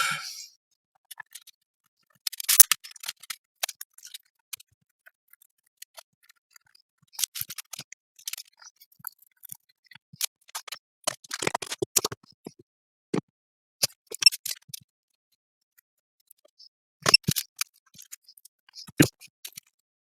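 Small hand tools clicking and scraping on a circuit board as the pads are cleaned up after the surface-mount capacitors were removed: scattered light clicks and brief scratchy scrapes with quiet gaps between them.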